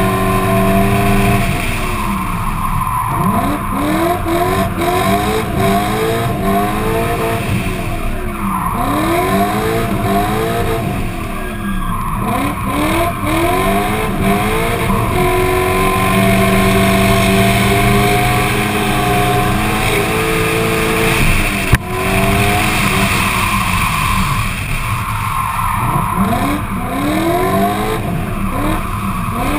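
Drift car engine, heard from a bonnet-mounted camera, revving up and falling back again and again as the car slides through corners, with tyre squeal from the spinning rear wheels. There is a single sharp click about 22 seconds in.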